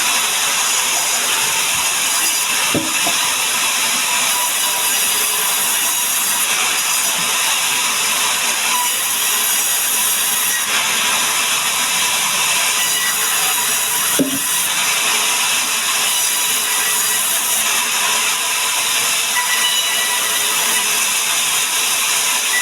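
Sawmill saw cutting through a mahogany log, a loud steady hiss of the blade in the wood. A short knock comes a few seconds in and another just past halfway.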